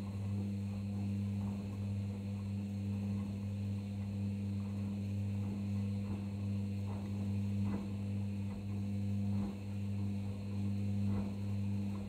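Arçelik 5083 washing machine running mid-programme with mops in the drum: a steady low hum, with faint irregular splashing and ticking of water and wet fabric.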